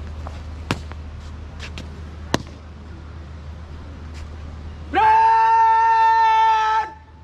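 Two sharp boot stamps on a hard court as a cadet marches and halts. About five seconds in, a loud drawn-out shouted drill command follows, held on one pitch for about two seconds.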